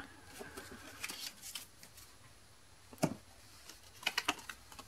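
Pokémon trading cards being handled: soft rustles and light taps of card stock. There is one sharper tap about three seconds in and a quick cluster of taps near the end.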